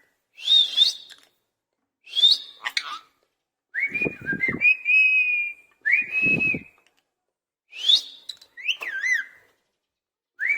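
Pet Indian ringneck parrot giving a string of about seven short whistles and chirps with gaps between, several sliding sharply up in pitch.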